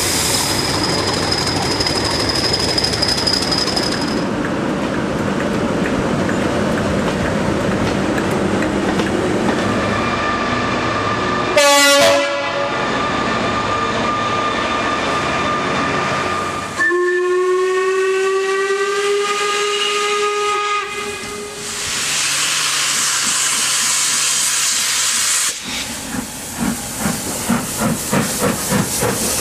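Trains at a station: diesel locomotives running with a high squeal, then a horn sounding. Next a steam whistle blows for several seconds, steam hisses, and a steam locomotive's exhaust beats a few times a second as it works away.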